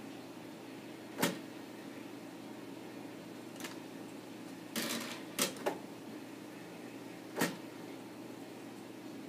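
A computer tower's motorised CD tray and the cat's paws batting at it make a handful of sharp plastic clicks and knocks, with a short cluster of them about five seconds in. A steady low hum lies under them.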